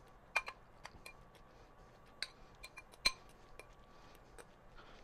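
Metal fork clinking against a ceramic bowl while stirring noodles: a scattering of light, irregular clinks, the sharpest about half a second and about three seconds in.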